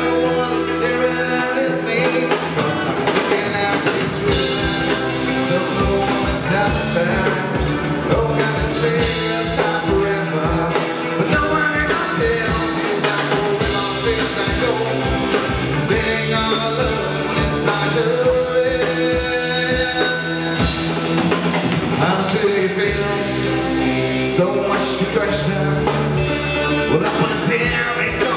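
Live rock band playing: electric guitars and electric bass, with a drum kit coming in about four seconds in and keeping a steady beat.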